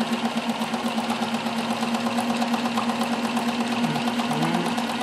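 Bernina 610 sewing machine running at speed, sewing a satin stitch: a steady motor hum with a fast, even beat of needle strokes.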